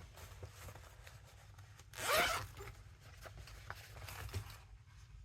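A short rasp about two seconds in, lasting about half a second, like something being zipped or dragged, amid faint taps and clicks from craft materials being handled.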